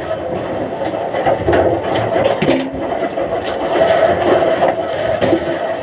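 Timber-mill machinery running steadily with a constant hum, with scattered knocks and scrapes from logs being handled.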